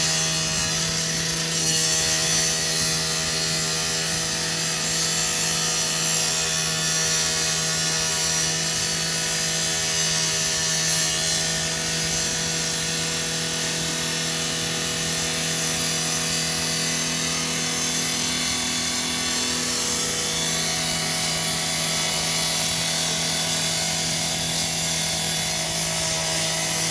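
Firefighters' power saw running steadily while cutting into the body of a garbage truck whose hydraulics have failed, to open it up and reach the fire, over a steady low engine hum.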